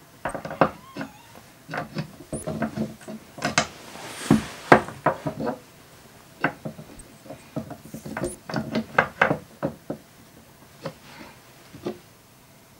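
Irregular clicks and knocks of a segmented statue tentacle (Doctor Octopus arm) being handled and fitted onto the statue's base.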